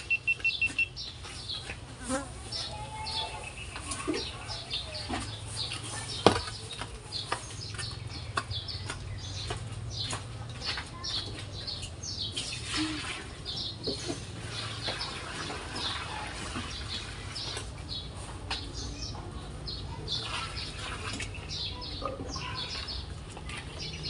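Outdoor yard ambience: many short, high chirps and ticks over a steady low hum, with one sharp knock about six seconds in.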